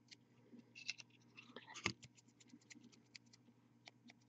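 Faint ticks and light scratching of a fine paint brush and fingertips working on a small plastic miniature, with one sharper click about two seconds in, over a steady low hum.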